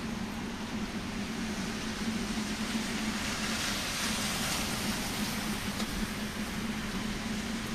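Rain with a minivan driving past on the wet road, its tyres hissing on the water, loudest about three to five seconds in. A steady low hum runs underneath.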